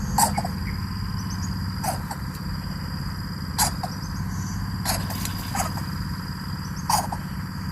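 Coucal chicks in the nest making short, sharp sounds every one to two seconds, over a steady low hum and a thin steady high tone.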